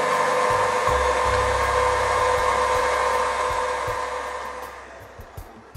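KitchenAid Heavy Duty bowl-lift stand mixer running at steady speed, its motor humming as the wire whip beats butter-and-sugar cake batter while eggs are worked in. The sound dies away between about four and five seconds in.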